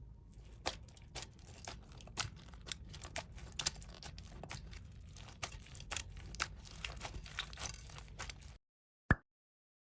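Slime being squeezed and worked by hand close to the microphone, crackling and popping in many small irregular clicks. It cuts off suddenly near the end, followed by one last click.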